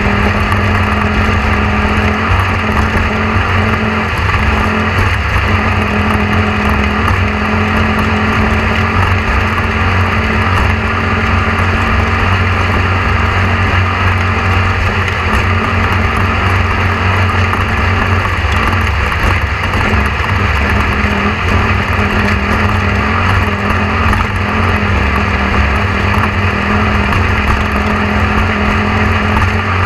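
A loud, steady mechanical drone with a constant low hum and a fixed pitched tone, unchanging throughout.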